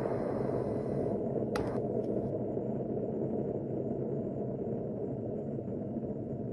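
Deep rumble of an explosion dying away slowly, with one brief sharp click about one and a half seconds in.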